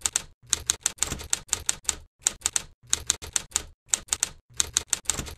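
Typewriter keystroke sound effect: a quick run of sharp mechanical clacks, about five or six a second, with a brief pause around two seconds in. It is timed to text being typed out on screen.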